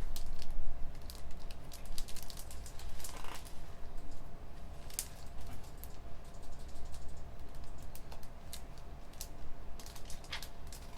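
Computer keyboard typing: irregular key clicks, densest in the first second, over a steady low hum of room machinery.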